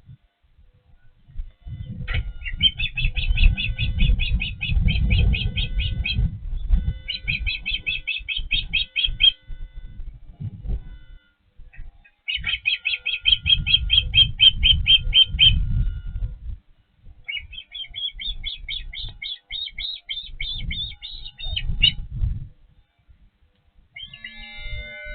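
Osprey calling in four bouts of rapid, high chirps, each bout two to four seconds long, with low rumbling thumps beneath the calls.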